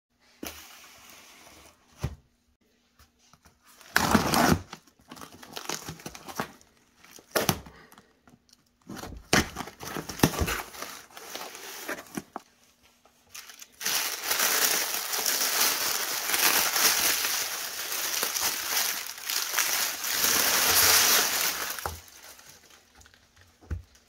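A cardboard shipping box is handled and opened by hand, giving a few scattered knocks and scrapes in the first half. About halfway through comes some eight seconds of continuous crinkling and rustling as the packing inside is pulled about.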